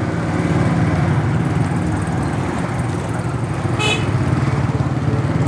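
Honda CD-70's small single-cylinder four-stroke engine running steadily at low riding speed. A short horn beep sounds about four seconds in.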